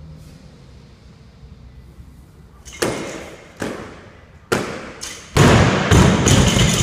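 A run of heavy thuds and clanks from a barbell loaded to 280 lb as it is jerked overhead and brought back down onto wooden jerk blocks. A few separate impacts come first, then louder, closely spaced ones near the end, with the plates ringing.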